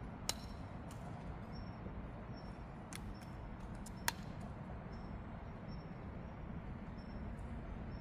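Small hand hoe working stony soil, with a few sharp clinks of the blade striking stones, the loudest about four seconds in.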